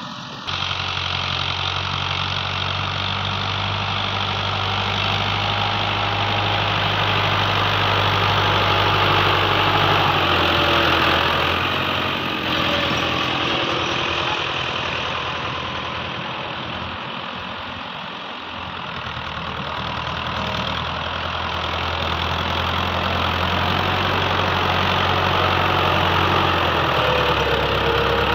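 New Holland farm tractor's diesel engine running steadily as its front blade pushes a heap of sand and earth into a trolley. The engine grows louder, eases off around the middle, then builds again.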